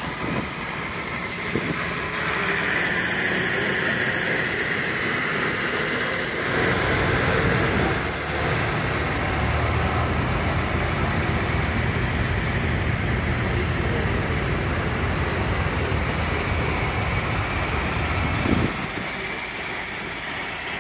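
Engines of classic farm tractors running as they drive past one after another at walking pace. One tractor's engine is loudest through the middle with a steady low hum, then fades after a short knock near the end.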